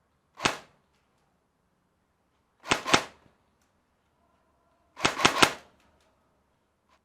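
Airsoft gun firing: a single shot, then two quick shots about two seconds later, then three quick shots near the end, each a sharp pop with a short echo.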